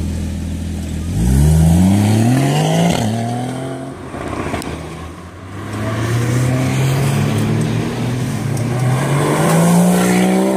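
Porsche Cayman S engine idling, then revved hard about a second in, rising sharply and dropping back twice. From about halfway its revs climb more slowly, with a brief dip, until the sound cuts off at the end.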